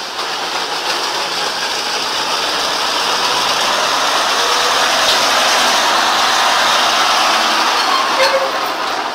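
Nissan Diesel tanker truck's diesel engine running as the rig drives slowly past close by; the noise swells to its loudest about two-thirds of the way through and eases off near the end.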